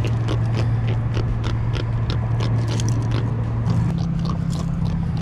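Irregular clicking and scraping as a freshly caught jack is unhooked from a hard-plastic minnow lure, over a steady low drone that steps up in pitch about two-thirds of the way through.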